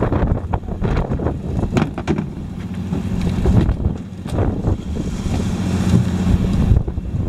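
Wind buffeting the microphone over the steady low hum of a fishing boat's engine, with a few knocks and clatters as plastic cooler lids are lifted and laid on the wooden deck.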